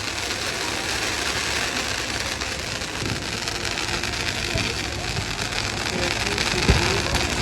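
Fireworks crackling in a dense, steady hiss of small pops, with a few heavier bangs; the sharpest comes about two-thirds of the way in.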